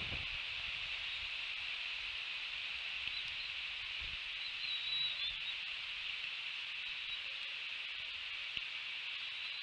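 Outdoor ambience at an eagle nest: a steady high hiss, a few faint high chirps around three to five seconds in, and low rustles near the start and about four seconds in.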